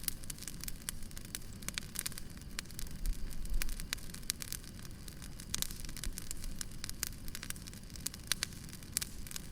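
Wood fire crackling, with many irregular sharp pops and snaps over a steady low rumble.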